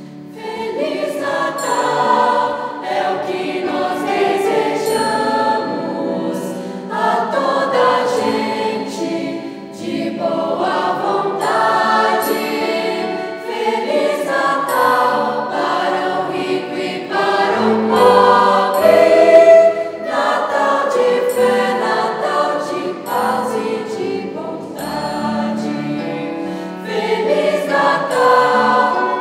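Mixed youth choir of boys and girls singing a song in several parts, with a triangle struck now and then.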